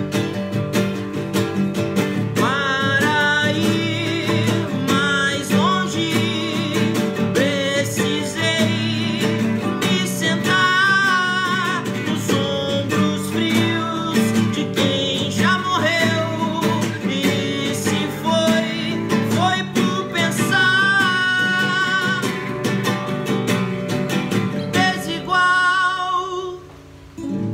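Two acoustic guitars, a steel-string and a nylon-string classical guitar, strummed and picked under a man's singing voice. The song ends near the end, with the last chord dying away.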